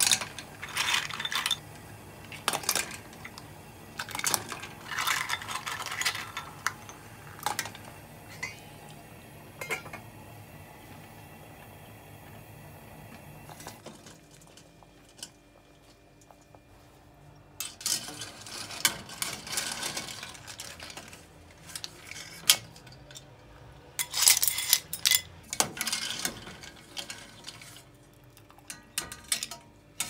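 Clam shells clinking and clattering against a stainless steel pot as they are dropped in. Further bursts of metal-and-shell clinking follow as a metal slotted spoon stirs and scoops the cooked clams out of the pot.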